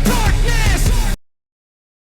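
Loud outro music with a steady drum beat, cutting off suddenly a little over a second in.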